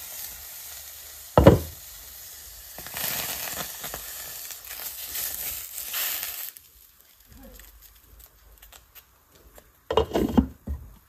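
Banana-leaf fish parcel sizzling in a hot kadai, with a high hiss that swells and then stops about six and a half seconds in, and one loud metal clank about a second and a half in. Several clattering knocks near the end as the glass lid is put back on the pan.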